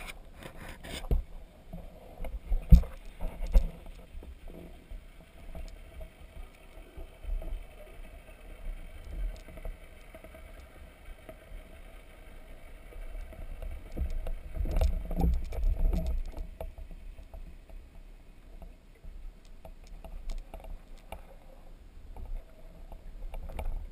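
Muffled underwater noise picked up by a camera hung on a rope in the water: a low rumble of moving water with a few knocks in the first few seconds, swelling for a couple of seconds in the middle.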